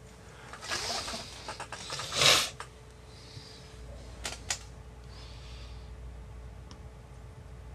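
Small handling sounds from tweezers and a soldering iron working a receiver wire onto a flight-controller pad: a short rush of noise about two seconds in and two light clicks a little past four seconds, over a faint steady hum.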